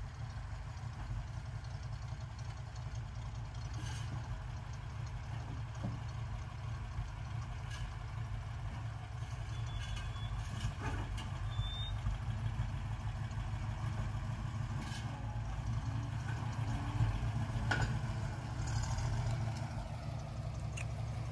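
Toyota Land Cruiser 60-series engine running at low speed as the truck is backed down off a car-hauler trailer and driven away, with a few faint knocks along the way.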